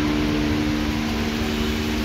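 Steady hiss of falling rain, with a steady low two-note hum underneath.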